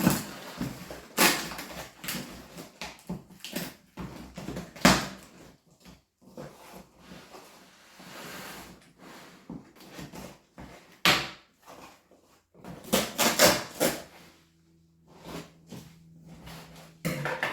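Irregular knocks, clicks and rustles of a box and its packaging being handled and opened. A faint steady low hum comes in near the end.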